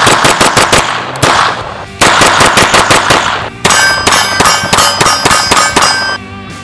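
STI Guardian 9mm pistol fired in rapid strings, several shots a second, in three runs with short breaks. In the last run, from about three and a half seconds in, steel targets ring with the hits.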